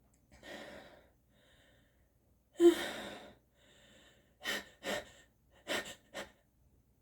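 A person gasping and breathing in the build-up to a sneeze: a drawn breath, a sudden loud burst of breath about two and a half seconds in, then a run of five short, quick gasps.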